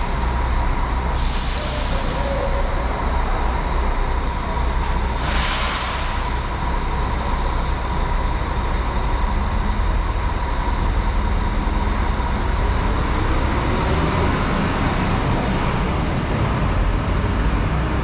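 Marcopolo Paradiso G7 coach's diesel engine running steadily as the coach pulls away slowly. Two short sharp hisses of compressed air from the brakes come about one and five seconds in.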